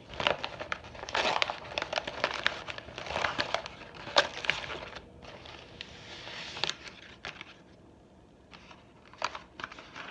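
Paper takeout food packaging being handled and unwrapped, crinkling and rustling with sharp crackles, then quieter with a few isolated clicks near the end.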